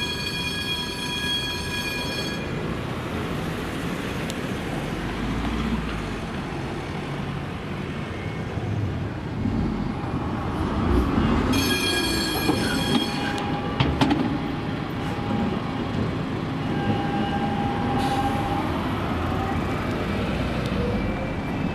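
Munich low-floor tram rolling through an intersection, its steel wheels squealing on the rails in a high, steady tone with several overtones. The squeal lasts about the first two seconds and comes back for a couple of seconds about halfway through, over steady traffic noise.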